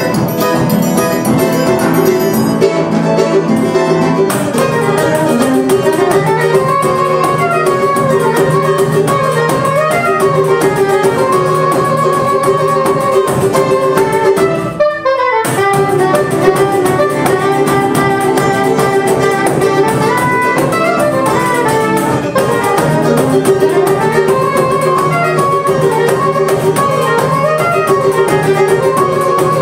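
Live Brazilian choro quartet playing a baião. A soprano saxophone carries the melody over acoustic guitar, cavaquinho and pandeiro. The music breaks off for a moment about halfway through.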